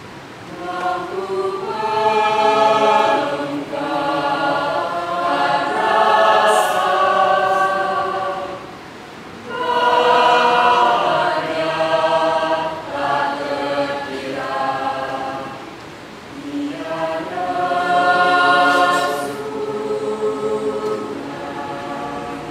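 A choir singing in harmony, the phrases swelling and easing, with two short dips between phrases.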